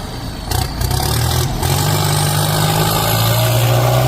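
Heavy machine's engine running, settling into a steady low drone about a second and a half in, after a few brief knocks.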